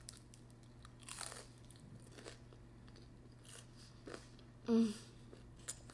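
Close-up mouth sounds of biting and chewing a slice of pizza: soft crunches and wet clicks. About three-quarters of the way through comes one short, louder hum from the eater's voice.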